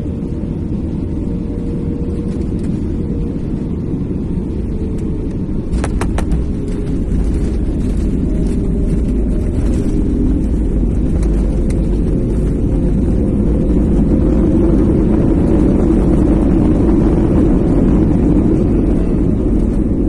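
Jet airliner cabin noise as the plane rolls along a runway: a steady engine and rolling rumble that grows gradually louder, with a few brief clicks about six seconds in.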